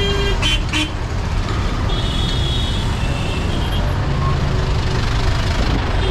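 Busy city street traffic: engines running under a steady low rumble, with vehicle horns beeping about two seconds in and again shortly after. Two sharp clicks come about half a second in.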